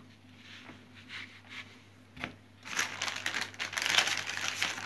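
Foil blind-bag packet crinkling as it is handled, starting about three seconds in, after a single soft knock a little past two seconds.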